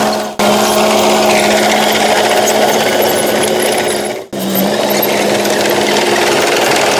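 Heavy diesel engine of earthmoving machinery running steadily under load, with a mechanical rattle. The sound cuts out sharply twice, for an instant, near the start and about four seconds in.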